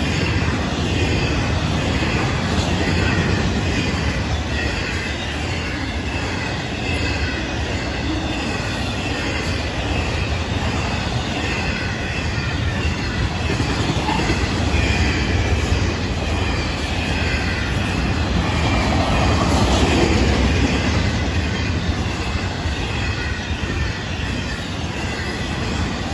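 Florida East Coast Railway intermodal freight cars (double-stack containers and trailers on flatcars) rolling past: a steady rumble of steel wheels on the rails with wavering high-pitched ringing tones above it, swelling a little about three-quarters of the way through.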